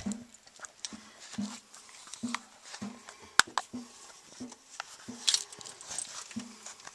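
Hand-work noises under a kitchen sink as the washer and mounting nut are fitted and tightened onto a faucet shank: a run of short, low thuds at about two a second, with light clicks and one sharp click about halfway.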